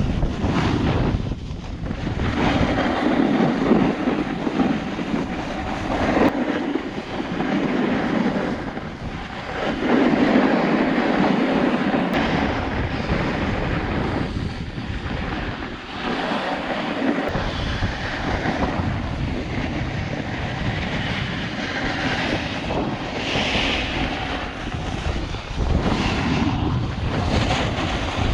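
Snowboard edges scraping and hissing over packed snow while riding downhill, with wind rushing over the microphone; the noise swells and eases every few seconds as the rider turns.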